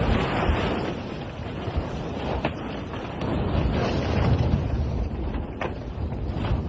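Wind buffeting the microphone on the deck of a sailboat under way at sea, a steady low rushing, with a few sharp knocks.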